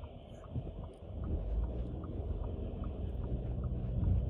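Car interior noise as the car creeps forward in first gear: a low engine and road rumble that grows louder about a second in. A faint regular tick sounds about two and a half times a second.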